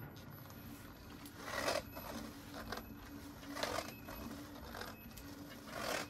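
Kingsong S22 electric unicycle with a new 4000 W motor, powered up and balancing, giving off a faint steady whine with three brief louder noises about two seconds apart. This is the bird-like "hummingbird" singing that the owner traces to the control board when it drives the new motor.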